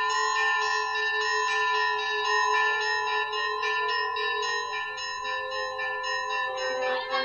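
Soundtrack music of ringing bells: a quick run of bell strikes, about three a second, over a held low bell tone. A wavering singing voice comes in at the very end.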